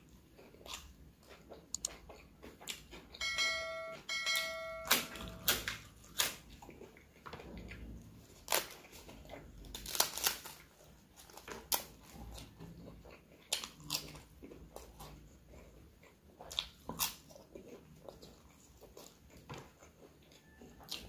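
Close-up eating sounds: a crisp papad crunched between the teeth, with wet chewing, lip smacks and mouth clicks. Two short electronic beeps sound about three to five seconds in.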